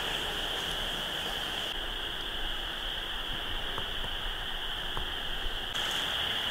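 Frog chorus trilling steadily in the distance, heard as a continuous high-pitched hum over faint background hiss.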